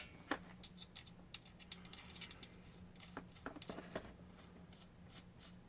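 Faint, scattered small clicks and light rattling of hard parts being handled: the inner drive shaft of a rotary tool's flexible shaft attachment being pulled out of its sheath.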